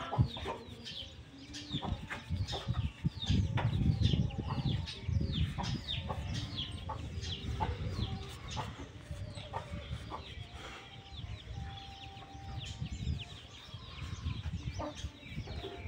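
Chickens calling: a steady stream of short, high, falling chirps, with a few longer held lower notes now and then. A low rumble sits underneath, loudest a few seconds in.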